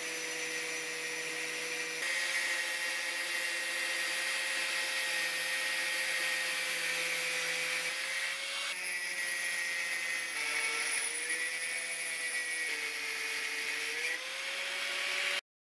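Angle grinder with a cut-off disc cutting through 4 mm steel plate: a steady motor whine over the hiss of the disc grinding into the steel. The pitch shifts a little a few times and the sound cuts off suddenly near the end.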